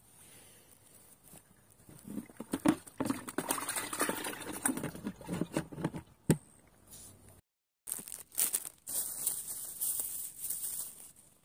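Close handling noise: irregular rustling and crinkling with scattered sharp clicks, loudest in the first half, breaking off in a brief silent gap after about seven seconds and then going on over a steady hiss.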